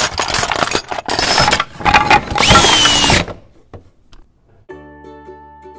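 Loud mechanical whirring and clatter in several bursts, one with a whine that rises and then slowly falls. A few bars of quiet plucked-string music begin near the end.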